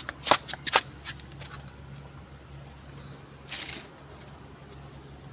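A quick run of about six sharp clicks and knocks, then a short rustle about three and a half seconds in, over a low steady hum.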